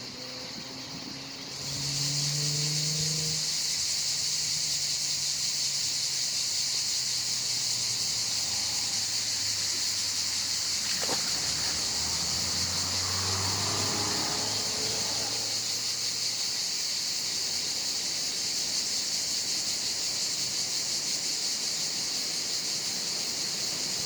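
A steady high-pitched insect buzz that starts abruptly about two seconds in and carries on, with a faint low hum beneath it that slowly drops in pitch and fades out after the middle.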